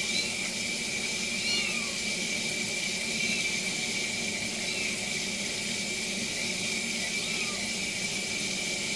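A young kitten mewing several times in short, high-pitched cries as it is washed under a running tap, with the faucet's stream running into a stainless steel sink.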